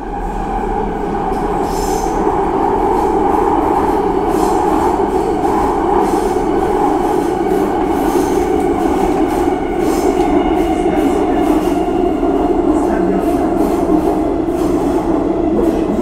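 Subway train running steadily along the tracks: a continuous low rumble with a steady droning hum and occasional light clicks. It swells up over the first couple of seconds, then holds even.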